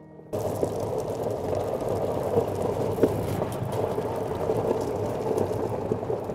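Side-by-side utility vehicle driving by: its engine running with a steady rushing tyre and road noise and a few small clicks, starting suddenly just after the start.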